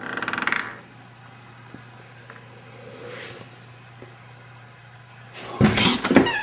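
A short crying voice, high and wavering, in the first half second, over a low steady hum. Near the end comes a burst of loud knocks and bangs.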